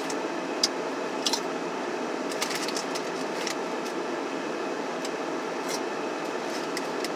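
Potato chips crunching and the chip bag crinkling in a few short, sharp snaps, over a steady rushing noise in the car cabin.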